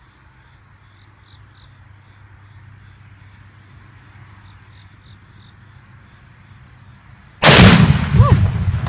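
Quiet outdoor ambience, then about seven and a half seconds in a single loud blast: a rifle shot setting off an exploding target downrange, its low boom rolling away over a second or so.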